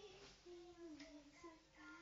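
A young child's voice singing faintly, a few held notes that step up and down in pitch.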